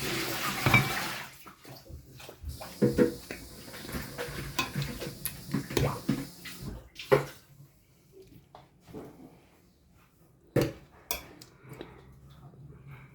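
Liquid pouring with a steady splashing hiss, then a run of clinks and knocks of dishes and utensils that thins out to occasional taps.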